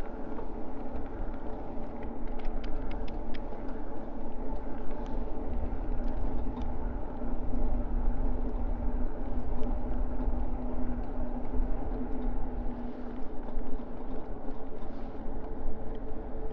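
Riding noise on an e-bike: a low rumble with a steady hum, and a quick run of rattling clicks about two to four seconds in.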